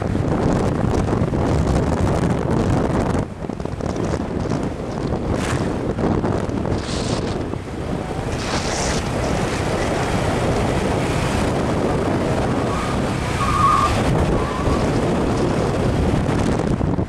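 Wind buffeting the microphone over the road and engine noise of a moving motorcycle, with a few short beeps about three-quarters of the way through.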